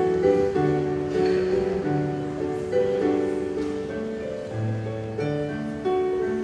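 Electronic keyboard played with a piano sound: a slow instrumental tune over chords and bass notes, each note struck and then fading, the chords changing about once a second.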